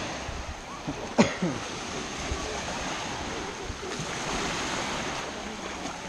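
Small Baltic Sea waves washing and breaking on a sandy shore in a steady wash, with a single sharp click about a second in.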